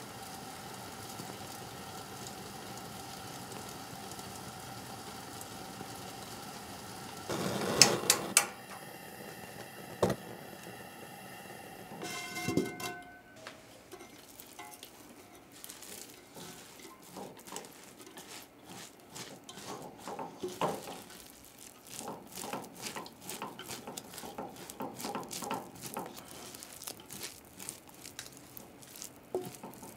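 A pot of rice steaming with a steady hiss and hum. About 8 seconds in come a few sharp knocks as the wooden lid is handled, and a short ring a few seconds later. Then the freshly cooked rice is stirred and turned, with soft sticky squishes and light clicks and scrapes.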